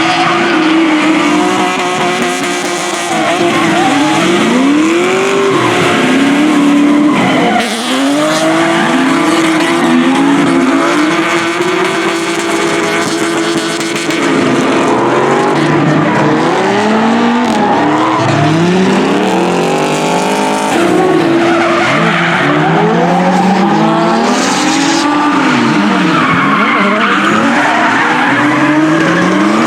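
Drift car engine held at high revs, again and again dropping and swooping back up in pitch, over screeching tyres as the car slides through the slalom.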